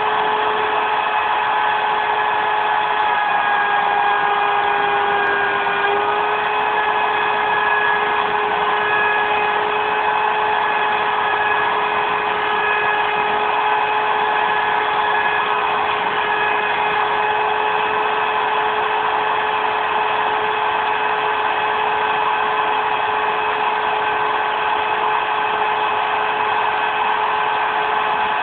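CNC router spindle running with a steady high whine as it cuts 18 mm MDF. The pitch sags slightly about four seconds in, then recovers.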